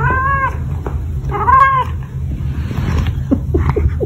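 Domestic cat giving two drawn-out meows, each about half a second long, while carrying a yarn ball toy in its mouth. A few short scattered sounds follow in the second half.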